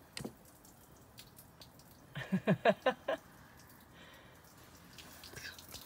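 Water dripping from a boat hull's open drain hole, faint scattered drips. About two seconds in, a person's voice gives a short quick run of about seven pitched pulses, the loudest sound.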